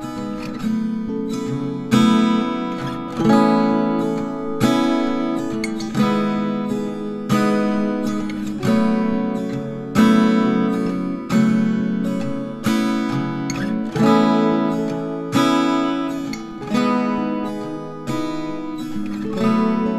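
Background music: strummed acoustic guitar chords in a steady rhythm, a strong strum about every second and a third, each ringing out before the next.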